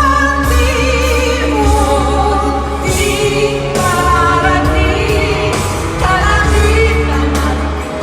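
Pop music: a woman's voice singing held, wavering notes over a band with a heavy, steady bass.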